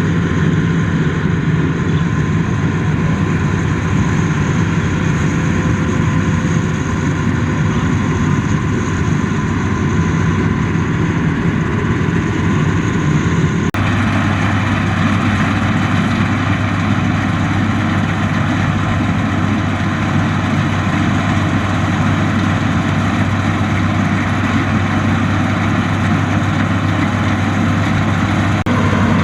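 Combine harvester's diesel engine running steadily under load. About fourteen seconds in, the sound changes abruptly and its hum settles lower.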